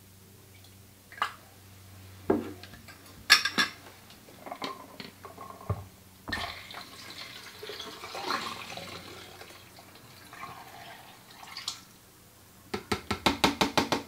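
Liquid pouring from a plastic measuring jug into a film developing tank for a few seconds in the middle: hypo clearing solution going in after the fixer. Before it come a few knocks of plastic containers on the counter, and near the end a quick run of clicks.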